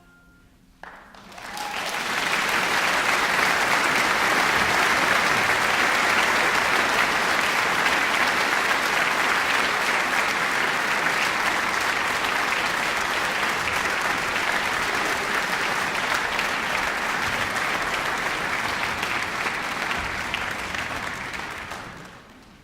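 Concert audience applauding. The clapping starts about a second in, right after the last chord of the music, builds quickly to a steady, dense level, and dies away near the end.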